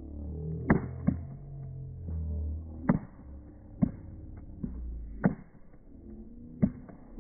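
Slowed-down, pitch-lowered field audio: deep, drawn-out droning broken by about six sharp knocks at uneven intervals.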